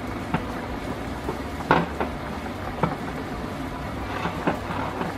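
Silicone spatula stirring sliced red onions in vinegar in a ceramic bowl, giving a handful of short, soft taps and wet slides against the bowl, over a steady background hiss.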